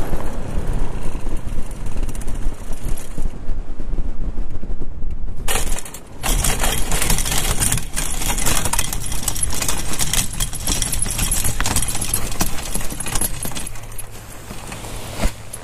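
Wind rushing and buffeting over the microphone as a powered paraglider glides in to land with its power cut. The rushing is loudest from about six seconds in and drops away near the end as the pilot touches down.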